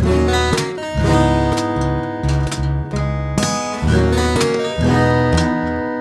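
Solo acoustic guitar played fingerstyle: ringing picked notes and chords over low bass notes, with no singing.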